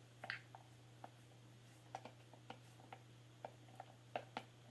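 Faint, irregular clicks and light taps of small objects being handled while groping for a dropped lid, over a steady low hum.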